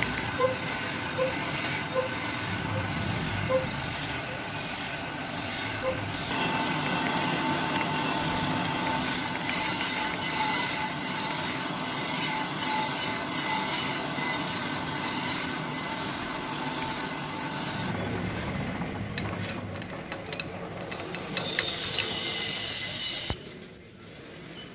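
Crankshaft grinding machine's wheel grinding an Alto 1000cc crankshaft journal under coolant spray: a steady hissing grind with a faint regular tick at first, growing louder a few seconds in. About three-quarters of the way through the grinding sound drops away, leaving quieter machine noise that falls further near the end.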